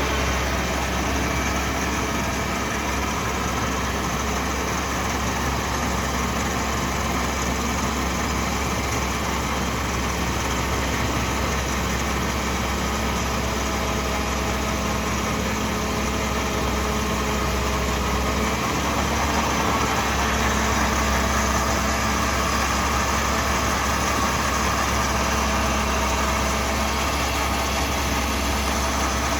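Ford 6610 tractor's diesel engine running steadily, with no change in pitch or level.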